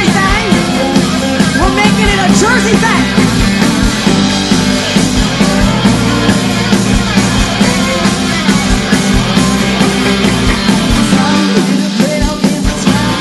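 Live country-rock band playing loudly: fiddle over electric guitars, bass and drums with a steady beat. The low end drops away briefly near the end.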